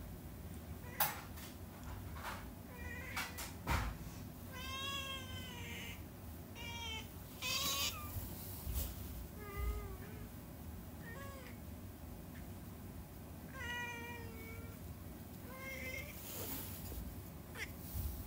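Young tabby cat meowing repeatedly, about eight short meows, each rising and falling in pitch, with a few faint clicks in between.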